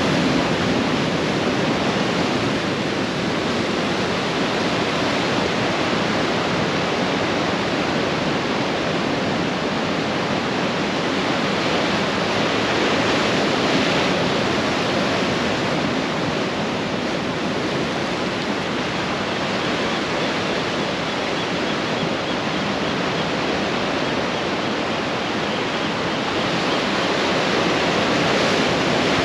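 Ocean surf on a beach: a steady wash of breaking waves that swells gently louder and softer every several seconds.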